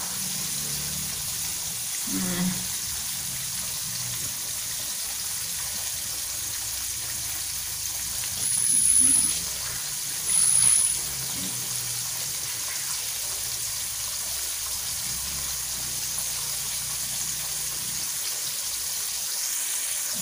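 Flour-coated catfish pieces frying in hot oil in a wok: a steady sizzle. Two brief, louder high-pitched bursts come near the middle.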